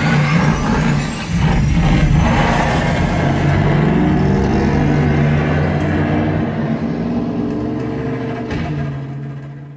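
Film car-chase soundtrack played loud through a Klipsch THX Ultra 2 home-theatre speaker system and heard in the room: a supercharged car engine running hard, with a few sharp knocks early on. The sound fades near the end.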